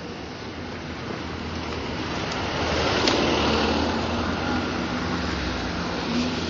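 A road vehicle passing close by on the street, its noise swelling to a peak midway and then fading, over a steady low traffic hum, with a single sharp click at the peak.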